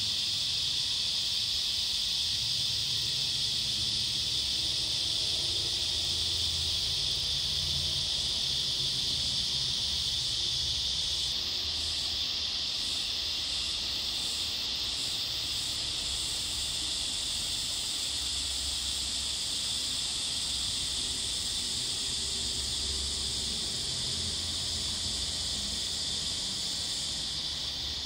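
Steady, high-pitched chorus of insects, with a second, higher call that pulses about once a second for a few seconds in the middle.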